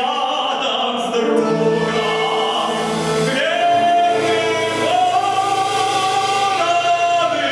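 Operetta song sung with orchestral accompaniment, the voices holding long notes that step upward in pitch twice.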